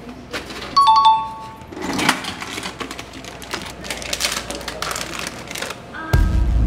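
A short two-note chime about a second in, then a plastic chip bag crinkling and rustling as it is handled and opened. Music with a deep boom comes in near the end.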